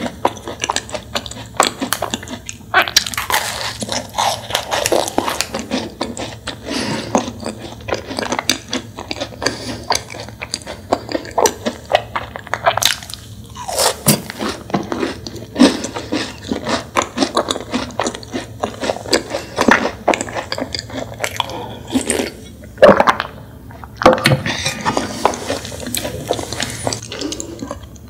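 Close-miked eating: biting into and chewing a macaron, the crisp shell crunching in many small crackles between quieter pauses.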